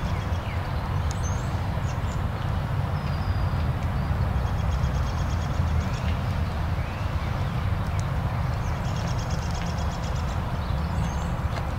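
Outdoor ambience: a steady low rumble with a few faint bird chirps and two short, rapid high trills, one in the middle and one near the end.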